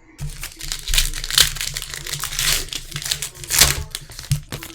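A trading-card pack wrapper being torn open and crinkled by hand: a dense, continuous crackling with louder crackles about a second in and again past three and a half seconds.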